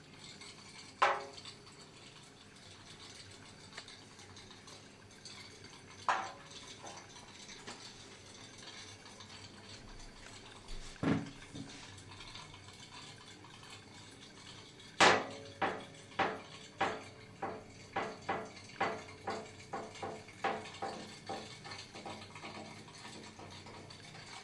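Tin pop-pop tug boat's candle-heated steam engine popping: a few sharp, widely spaced pops, then a run of about two pops a second through the last nine seconds or so.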